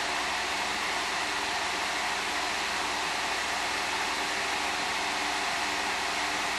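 Blower-style cooling fans of four GeForce GTX 480 graphics cards running flat out under a FurMark full load, with the GPUs at about 90 to 103 °C. The sound is a steady rushing whoosh with a faint hum beneath it.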